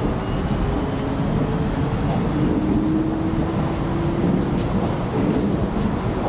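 An X'trapolis 100 electric multiple unit running along the line, heard from inside the carriage: a steady rumble of wheels on rail, with a faint motor whine that rises slightly in pitch about midway through.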